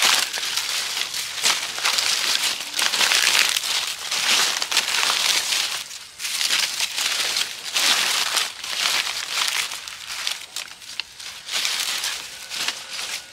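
Dry bamboo leaves crackling and crumpling as they are grabbed by the handful and pushed down into a hole in the ground. The crackling comes in repeated bursts, dense for the first half and sparser and softer after that.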